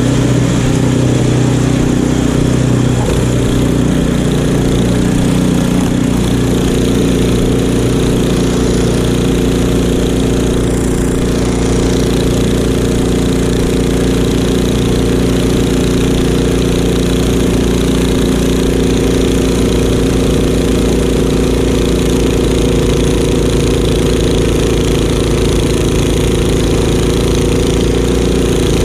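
Craftsman two-stage snowblower's engine running steadily as it clears and throws deep snow. Its pitch dips and shifts a few seconds in, then holds steady.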